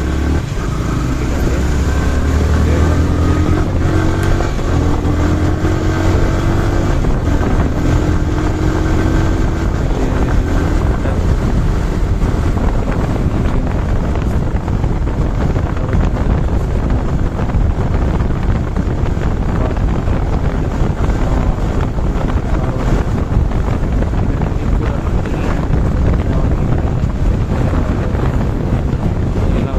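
Motorcycle engine pulling away and rising in pitch through the gears in the first ten seconds or so while riding. After that, heavy wind rush on the microphone covers a steady engine drone.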